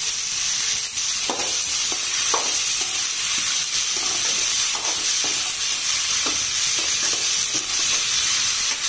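Diced chayote sizzling steadily as it fries in oil in a metal kadai, salted so it softens, while a metal spatula stirs it, scraping and tapping against the pan every second or so.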